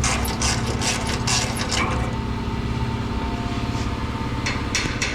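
A motor running steadily, with rapid clattering and knocking over it, thickest in the first couple of seconds and again near the end; the sound cuts off abruptly at the end.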